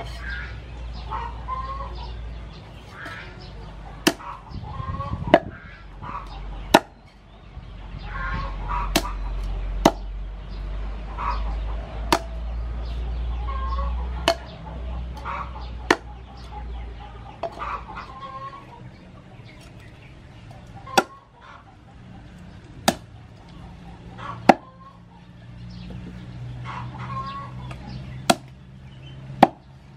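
Cleaver chopping raw chicken on a wooden chopping board: single sharp chops every one to three seconds. Chickens clucking in the background throughout.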